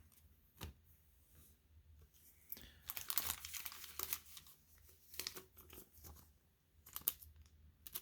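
Trading cards and packaging being handled: soft rustling and crinkling in short irregular bursts with light clicks, busiest about three to four seconds in.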